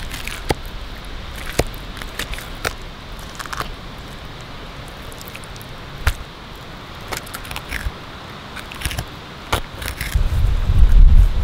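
Knife cutting and scraping at a fish on a wooden stump as its skin is peeled back: scattered small clicks and scrapes. About ten seconds in, a loud low rumble sets in.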